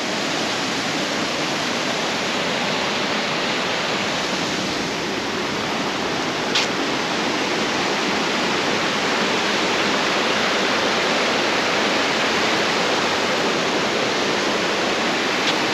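Turner Falls waterfall: a steady, even rush of falling water, with one faint short tick about six and a half seconds in.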